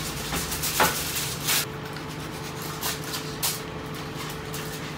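Aluminium foil crinkling and rustling a few times as a foil-lined tray of chicken is handled, over a steady low hum.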